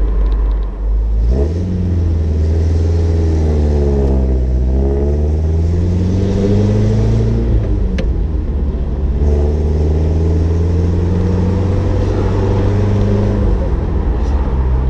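The four-cylinder engine of a 1956 Mercedes-Benz 190SL pulls away from a standstill about a second in and accelerates through the gears of its four-speed manual gearbox. The engine note climbs steadily, drops back at an upshift about halfway through, runs steady, then changes again near the end at the next shift.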